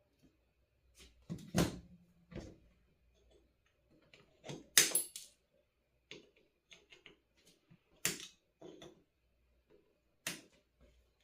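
Irregular clicks and taps of small hand tools and electronic components being handled on a workbench, the loudest about one and a half and five seconds in.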